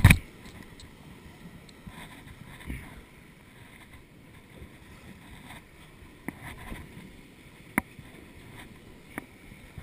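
Steady wind and rough-sea noise around a small fishing boat. A loud knock comes at the very start as a hand handles the camera, and a few sharp clicks follow later, around six, eight and nine seconds in, while a spinning reel is worked.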